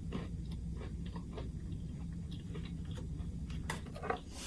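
A man chewing a bite of snickerdoodle cookie: small, irregular chewing clicks over a steady low hum.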